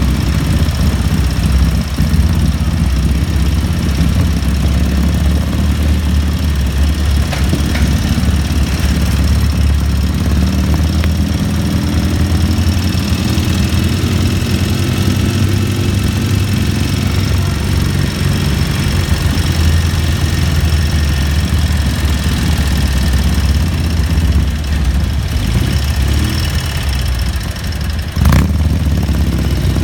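Sidecar motorcycle engine running steadily at low speed, heard close up from aboard the rig. A single sharp knock sounds near the end.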